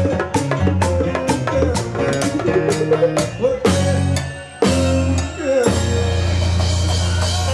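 Live Latin band music: a male voice singing over acoustic guitar, bass and a quick steady drum beat of about four strikes a second. About four seconds in, the beat drops out and the band holds one sustained low chord.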